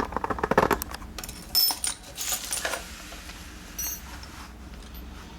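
A lock and its key handled and set down on a bench: a quick run of small metallic clicks and knocks in the first two seconds, then a short bright metallic ting about four seconds in.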